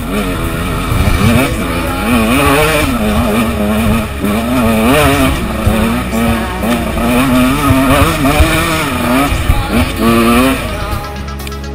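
The two-stroke engine of a KTM 125 EXC enduro bike revving hard and constantly up and down, its pitch swinging every second or so. Music takes over just before the end.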